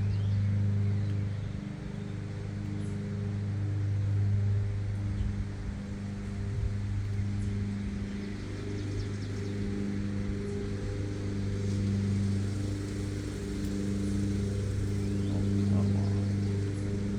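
Lawn mower engine running steadily, its drone swelling and fading every few seconds as it moves about, with a few faint ticks over it.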